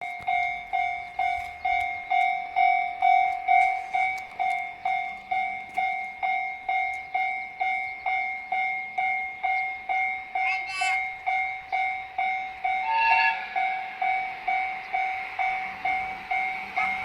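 Japanese railway level-crossing alarm ringing, a steady electronic ding about twice a second. A brief short tone sounds over it about 13 seconds in.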